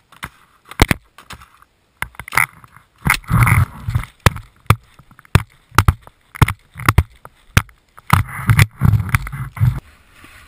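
Irregular knocks and clatters on a GoPro action camera carried by a skier, mixed with bursts of skis scraping and rumbling over snow, densest about three seconds in and again near the end.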